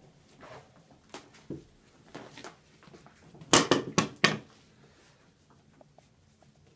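Border collie puppies scuffling as they play, with a quick run of four or five loud knocks about halfway through, then quieter rustling.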